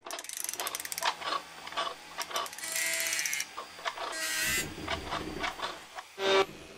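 Mechanical sound effects: a run of sharp clicks and ratchet-like ticks, with short whirs about three seconds and four and a half seconds in. A pitched musical note starts near the end.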